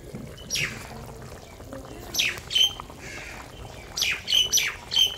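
A bird's short, harsh squawking calls, each falling in pitch. There are about seven: one alone, then a pair, then a quick run of four near the end.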